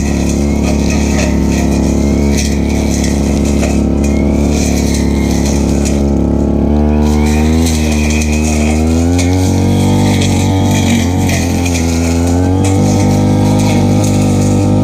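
Stihl FR3001 backpack brushcutter engine running at high speed while cutting grass. Steady for the first half, then the pitch dips and recovers several times as the cutting load changes.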